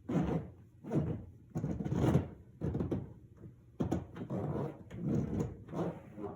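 A series of short scraping or rubbing strokes, a little more than one a second, as of hand work on a dishwasher part.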